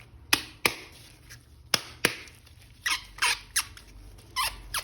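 Hard plastic clicking sharply four times, then a run of short squeaks as a plastic toy or its packaging is handled and opened.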